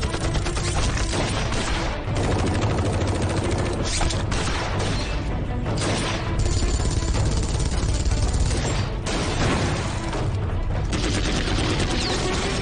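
Sustained, rapid film gunfire: many rifles and machine guns firing at once, with bullet strikes, over a music score.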